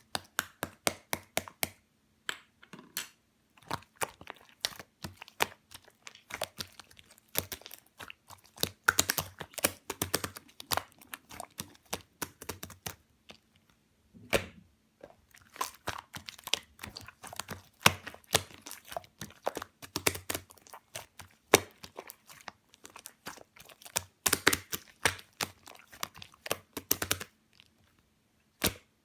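Slime being squished and pressed by hand, making rapid sticky pops and crackling clicks in bursts, with a few short pauses.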